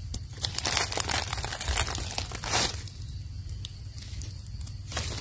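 Dry leaf litter crackling and rustling as it is handled, a run of small crackles for the first two and a half seconds with one louder crunch, then mostly quiet with a few ticks.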